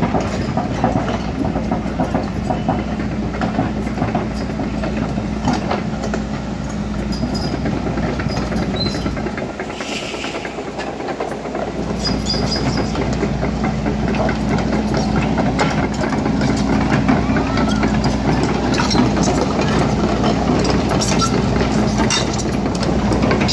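Volvo crawler excavator's diesel engine running steadily, with frequent metallic clicks and clanks over it. The low engine sound briefly drops away about ten seconds in, then picks up again.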